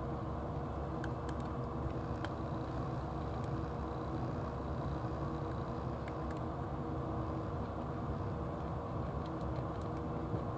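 A motor running steadily with a low, even hum, and a few faint clicks of a cat crunching dry cat food.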